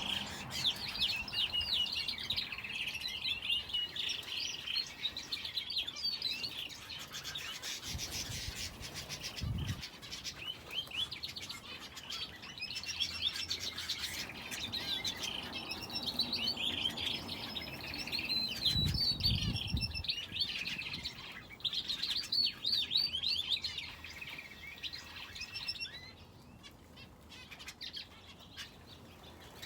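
Aviary finches and a canary chirping: busy bursts of rapid, high chirps and song phrases that thin out near the end. Two short low rumbles break in about a third and two-thirds of the way through.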